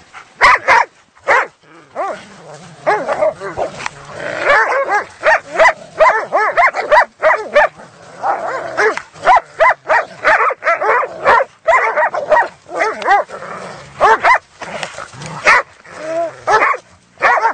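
Dogs barking and yelping: many short pitched calls in quick succession, several a second.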